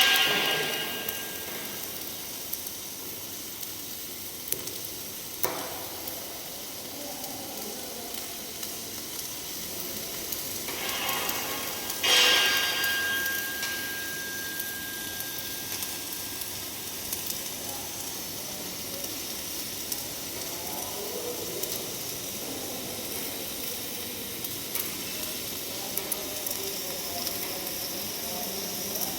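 MIG welding arc on a pipe, crackling and sizzling steadily, with louder bursts right at the start and about twelve seconds in.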